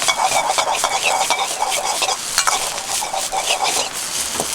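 Fried rice sizzling in a wok while it is stirred and tossed, with repeated scrapes and clicks of the spatula against the pan.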